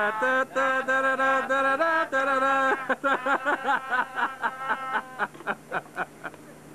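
A voice singing a wordless tune in long held notes, then a quick run of short repeated notes, about three a second, that fades out about six seconds in.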